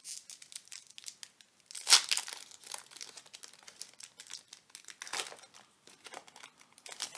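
Foil-lined Pokémon booster pack wrapper crinkling and tearing as it is pulled open by hand, a scatter of crackles with the loudest about two seconds in.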